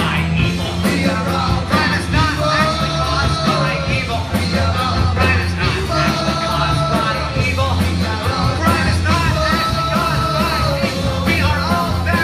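A live rock band playing, heard from within the audience: a lead singer holding long notes over electric guitars, keyboard, bass and steady drum hits.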